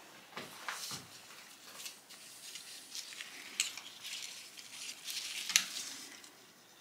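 Scattered light clicks, taps and rustles as a digital caliper is handled and set against a freshly milled aluminium block among loose metal chips, with the sharpest clicks about three and a half and five and a half seconds in.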